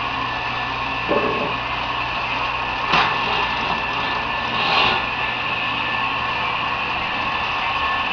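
Steady whir of HO-scale model trains running fast on the layout track, small motors and metal wheels on rail, with a few brief knocks.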